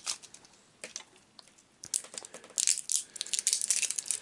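AA batteries being handled by hand beside a plastic battery compartment: small clicks and clacks of the batteries knocking together, with crinkly, scratchy rustles. Sparse at first, then a busy run of rapid clicks and crackles in the second half.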